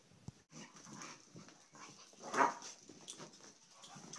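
A dog making excited noises: a run of short whines and yips, with one much louder cry about halfway through.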